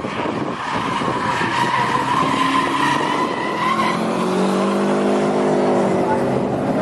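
Car tyres squealing as the cars slide through a wet corner. A car's engine note then rises and falls as it passes.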